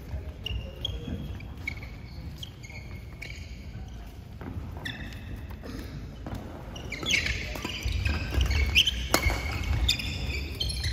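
Court shoes squeaking on a badminton court mat, with sharp racket strikes on the shuttlecock, in a large echoing sports hall. The squeaks and hits grow louder and busier about seven seconds in as a doubles rally gets going.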